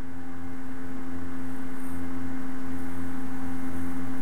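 A steady, fairly loud hum with one constant tone over a lower drone, slowly growing louder.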